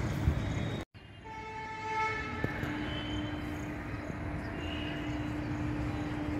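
Outdoor background noise that drops out completely for an instant about a second in. After the dropout a cluster of higher tones comes in briefly, then one steady low tone holds through the rest.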